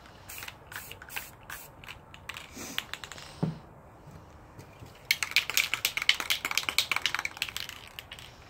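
Aerosol spray paint can in use: scattered sharp clicks, then about five seconds in a louder, dense run of rapid clicking and short spitting bursts lasting a couple of seconds.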